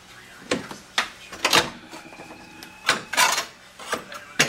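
About half a dozen irregular sharp knocks and clunks of tools being handled against the sheet-metal car floor, as a corded reciprocating saw is picked up and set in place before cutting.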